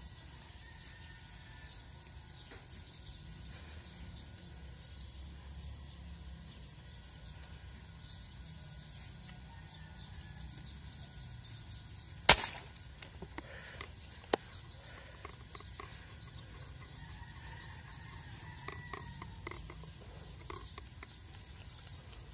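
A single sharp air rifle shot about twelve seconds in, the loudest sound by far, followed by a few small clicks and a second sharp click about two seconds later. Under it runs a faint steady high tone with quiet outdoor background.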